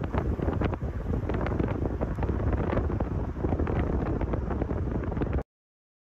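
Wind buffeting the microphone: a loud, uneven rush heavy in the low end, with gusts, cutting off abruptly to dead silence about five and a half seconds in.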